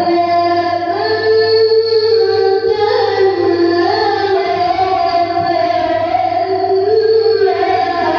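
A young boy reciting the Qur'an in the melodic tilawah style, his high voice holding long ornamented notes that glide up and down.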